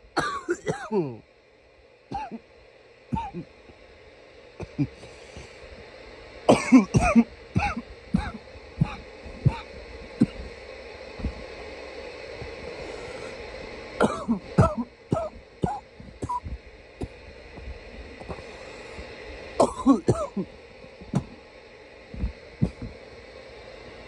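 A man coughing loudly in repeated fits, with a bout every six to seven seconds and single coughs and throat clearing between them.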